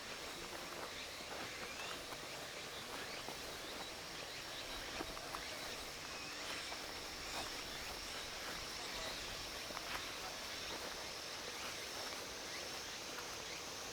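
Insects trilling steadily in a continuous high-pitched drone, with scattered faint clicks over quiet outdoor ambience.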